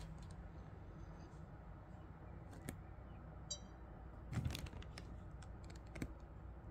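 Scattered clicks and handling knocks from a small device being handled, the loudest knock about four and a half seconds in, over a low steady hum, with a very brief high chirp midway.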